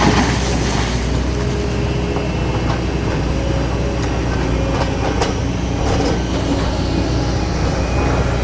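Doosan DX225LCA excavator's diesel engine running steadily as the machine works, with a few short metallic clanks, the sharpest about five seconds in.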